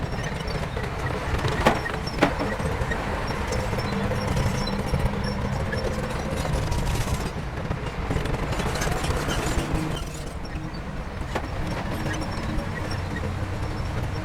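Diesel engine of heavy earthmoving equipment running with a steady low rumble. Two sharp metallic clanks come about one and a half and two seconds in.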